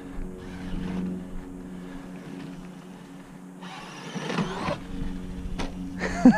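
Novak brushless electric motor of an RC10T3 RC truck whining up as the truck accelerates, about four seconds in, for about a second, followed by a couple of light knocks. A steady low hum runs underneath.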